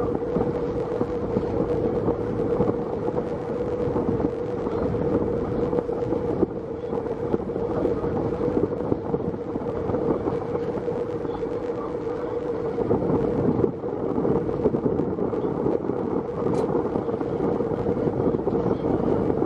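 Sightseeing boat's engine running steadily with a constant hum, with wind buffeting the microphone.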